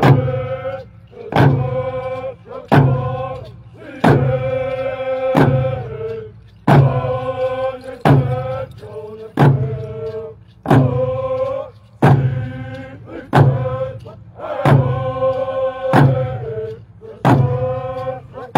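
Chanted song with long held, wavering notes over a slow, steady drumbeat, about one stroke every second and a third.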